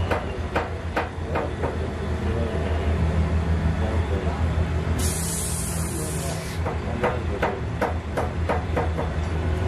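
Workshop machinery running with a steady low hum and a regular ticking, about two to three ticks a second. A burst of hiss about five seconds in lasts roughly a second and a half.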